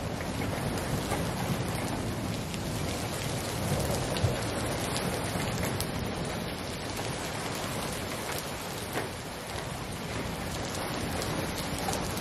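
Rain falling steadily in a thunderstorm, with scattered sharp hits of drops striking nearby surfaces.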